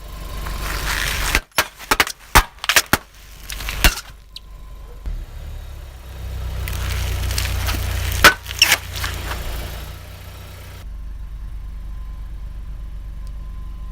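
A car tyre rolls over crunchy objects and crushes them, with a quick run of sharp cracks and snaps for a couple of seconds. A low engine rumble follows, then a second short burst of cracks, and the end settles to a steady low hum.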